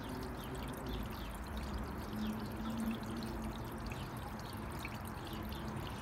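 Steady trickle of water splashing into a garden fish pond.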